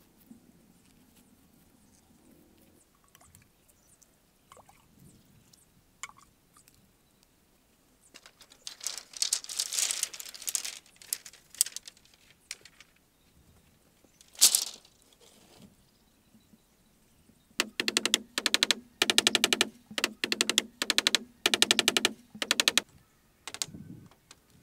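Long bamboo poles clattering and knocking together as they are handled, with one sharp knock partway through. Near the end comes a run of short, rhythmic rasping strokes. The opening seconds hold only faint ticks and rustles of fingers in soil.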